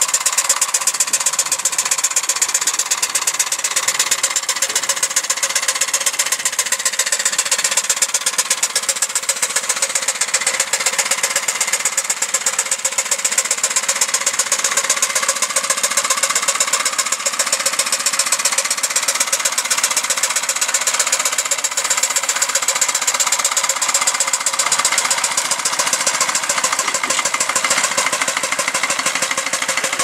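Quarter-scale steam traction engine running, its exhaust giving a rapid, steady beat over a constant hiss of steam.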